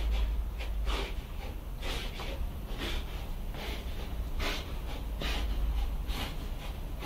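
Pit bull–type dogs snorting and breathing hard through their noses while gripping and pulling a tug rope, about one loud huff a second over a low rumble.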